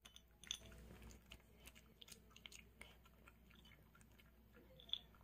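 A poodle crunching dry kibble and treats from a bowl: faint, irregular crunches and clicks, with a sharper click near the end.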